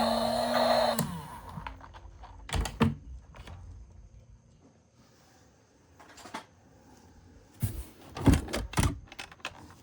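Background music that cuts off about a second in, then scattered light knocks and clicks of plastic toy vehicles being handled: two near the start, one in the middle, and a quick cluster near the end.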